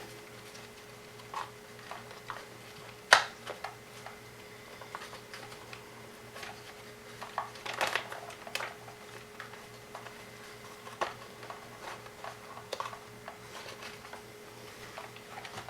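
Scattered light clicks and taps of hands fitting a flat IDE ribbon cable onto small plastic parts. The sharpest click comes about three seconds in, over a faint steady hum.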